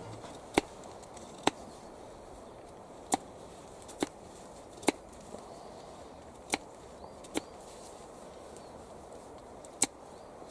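Wood being chopped with a hand tool: about eight sharp, separate strikes at an uneven pace, roughly one a second.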